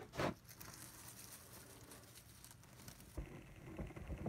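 Faint rustling and handling noise of a satin ribbon being pulled taut and wound around a bouquet handle, with a short knock just at the start.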